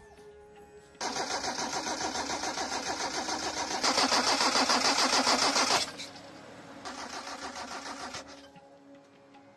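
A motor-driven machine running with a rapid pulsing beat, about five pulses a second. It starts abruptly about a second in, gets louder for about two seconds, cuts off, then runs again briefly.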